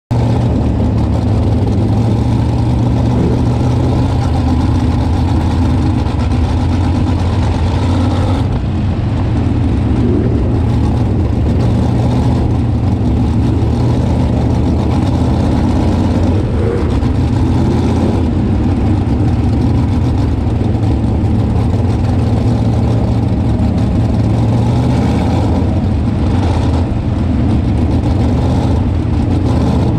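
Winged sprint car V8 engines heard from on board, running steadily at low rpm at parade-lap pace, with the surrounding cars' engines mixed in.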